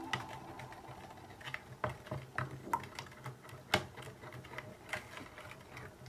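Faint, irregular small clicks and light taps, about a dozen spread unevenly, like small objects being handled.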